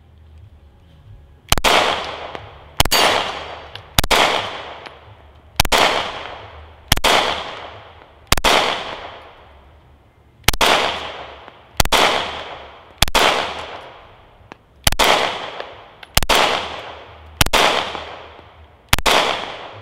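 A Glock 43X 9mm pistol fired in thirteen single shots, spaced about a second and a half apart, each with a trailing echo. It is being fired one-handed to test whether a poor grip makes it jam, and it cycles through every shot without a stoppage.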